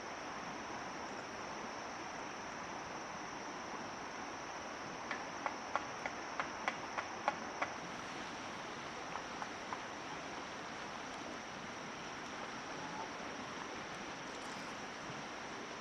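Steady outdoor ambience with a high, even insect drone over a soft rushing hiss. About five seconds in comes a quick run of about nine sharp taps, then three more a little later.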